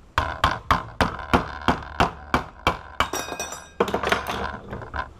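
Hammer blows on metal, a steady run of about three strikes a second, then a ringing clatter of loose metal parts about three seconds in, followed by more uneven knocking.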